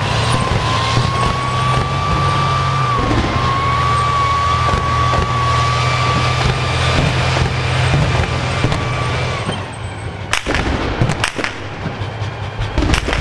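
2S3 Akatsiya 152 mm self-propelled howitzer on the move, its diesel engine running steadily with a high whine over it that fades out about nine and a half seconds in. Several sharp bangs follow near the end.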